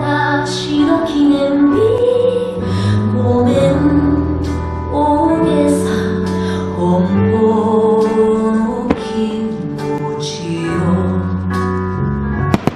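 Music: a song with a singing voice over instrumental backing, holding and gliding through long notes.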